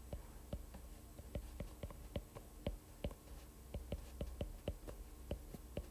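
Stylus tip tapping on a tablet's glass screen while handwriting: a faint, irregular run of short clicks, about three or four a second.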